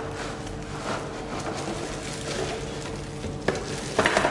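Cardboard box being handled and its contents slid out, ending in a quick crackle of plastic wrap as the bagged chopper bowl is pulled free.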